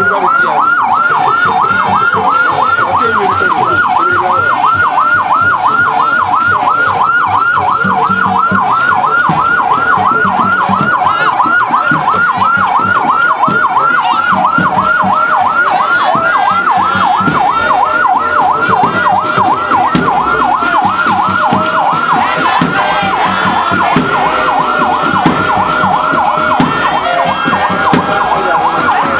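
Ambulance siren in a fast yelp, its pitch sweeping up and down about three to four times a second without a break.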